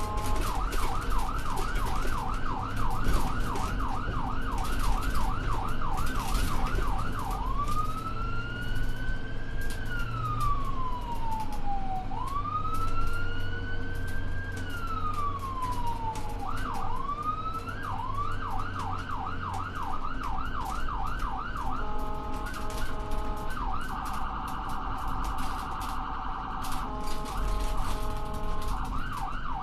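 Electronic emergency-vehicle siren cycling through its modes. It opens with a fast yelp at about three sweeps a second, switches to two slow wails that each rise and fall over about four seconds, returns to the yelp, and near the end gives short steady tones and a very rapid warble.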